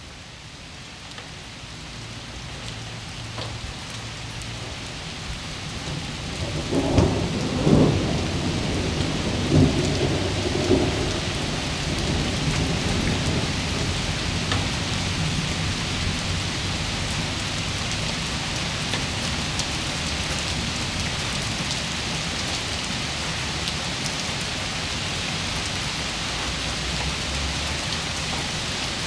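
Steady rain that swells up over the first several seconds. Several rolls of thunder rumble about seven to eleven seconds in, then the rain continues steadily.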